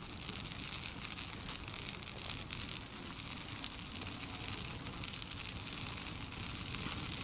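A camp chair burning in an open fire: dense, continuous crackling and popping over a steady rush of flames.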